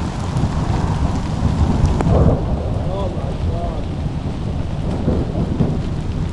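Heavy rain pouring steadily in a thunderstorm, with a low rumble of thunder underneath. A single sharp click stands out about two seconds in.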